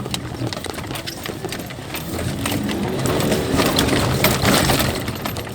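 Mitsubishi L200 pickup driving over rough off-road ground: its engine runs under load and climbs in revs around the middle, over a steady clatter of knocks and rattles as the truck bounces over bumps.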